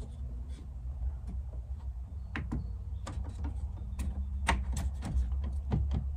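Plastic dash trim piece being pressed into place around a car stereo in a Honda Acty's dash: a scattered series of light clicks and knocks over a steady low hum.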